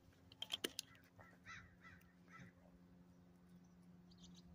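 A quick run of sharp clicks, followed by three short bird calls about half a second apart, over a faint steady hum.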